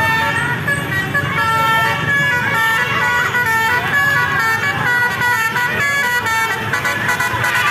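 Indonesian 'telolet' multi-tone bus horn of the Basuri type playing a melody, a string of held notes stepping up and down in pitch, over the noise of the bus.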